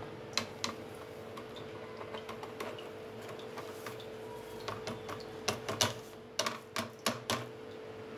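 Light clicks and scrapes of a plate against a bowl as powdered sugar is tipped in, a couple early on and a cluster of sharper taps past the middle, over a faint steady hum.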